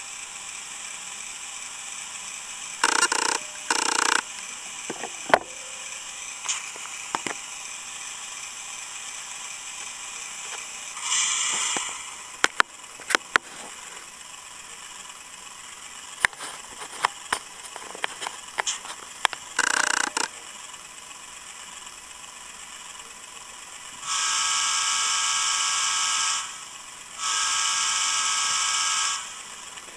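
Digitrax SDN144K1E sound decoder in an N scale Kato U30C, playing a GE U33 diesel sound file through a small speaker in the fuel tank. The diesel prime mover runs steadily under scattered mechanical ticking, with two short horn toots about three seconds in and two long horn blasts near the end.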